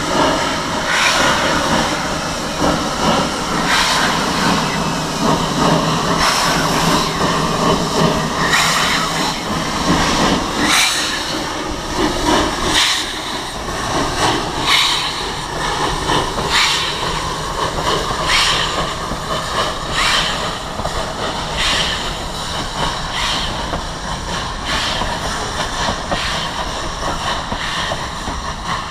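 Baldwin steam locomotive No. 338 chuffing slowly while shunting, with a sharp exhaust beat about every second and a half over a steady hiss of steam.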